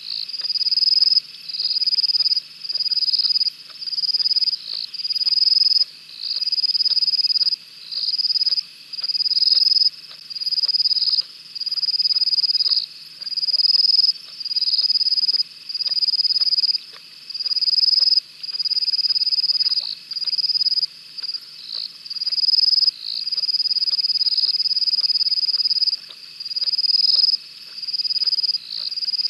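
Night chorus of calling animals: a high, trilling call repeats in bursts of about a second with short gaps between, over a steady high-pitched drone.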